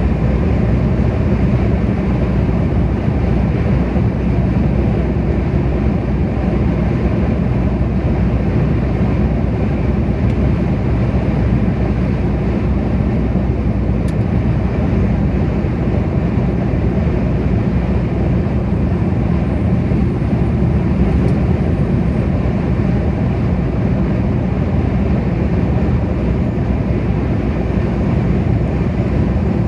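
Steady road noise of a vehicle cruising at motorway speed: an even, low rumble of tyres and engine that holds constant throughout.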